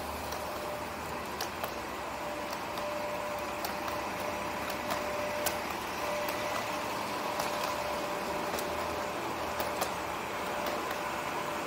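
Steady airport ambience: a continuous mechanical hum and noise with a faint steady tone and a few scattered light clicks.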